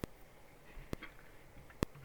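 Elektron Digitakt II giving three short, sharp clicks, evenly spaced a little under a second apart, over a faint low hum.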